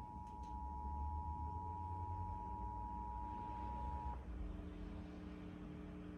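Emergency Alert System attention signal: the two steady tones of 853 and 960 Hz sounding together, marking the start of a Required Monthly Test. It cuts off sharply about four seconds in, leaving a faint low hum.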